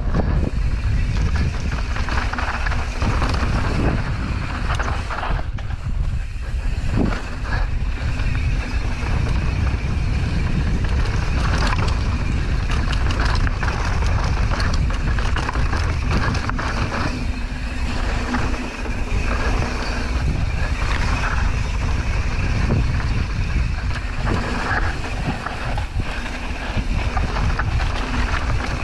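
A mountain bike rides down a dirt and rock trail. Wind rumbles steadily on the camera microphone, while the tyres crunch over dirt and gravel and the bike rattles with frequent sharp knocks over the rough ground.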